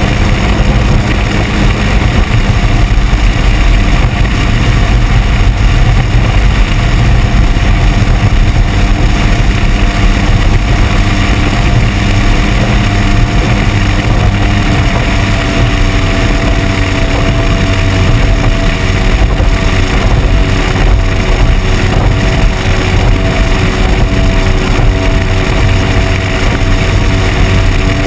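Outboard motor running at speed on a small boat, with rushing water and wind noise over it. The engine note shifts slightly about halfway through.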